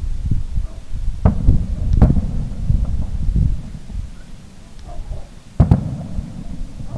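Aerial firework shells bursting at a distance: several sharp booms, the loudest about one and two seconds in and a close pair near the end, with a low rumbling echo rolling between them.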